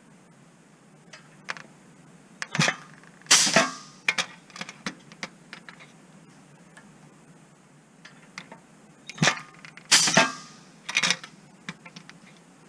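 Riveting machine setting solid aircraft rivets in two bursts about six seconds apart: each burst is a run of sharp metallic clicks and clanks, with one loud ringing clank at its heart.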